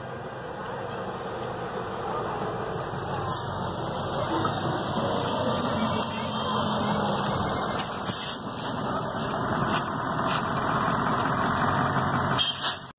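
Road vehicle driving, its engine and tyre noise growing steadily louder.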